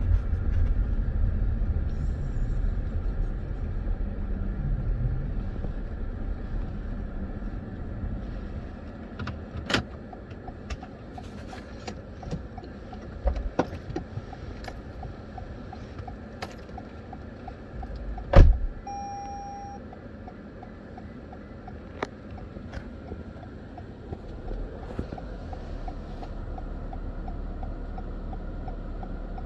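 Car engine and road rumble heard from inside the cabin, dying down over the first several seconds as the car slows to a stop. Scattered clicks follow, then a loud thump about 18 seconds in and a short electronic beep just after it.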